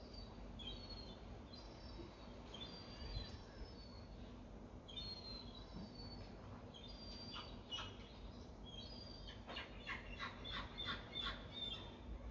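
Small birds chirping, short high calls repeated every second or so, with a quick run of harsher calls near the end. Underneath is a faint steady hum.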